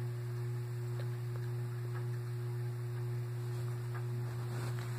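Steady low hum with a faint, steady higher tone above it and a few faint ticks.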